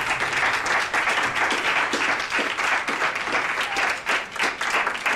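A group of people applauding, with dense, fast clapping.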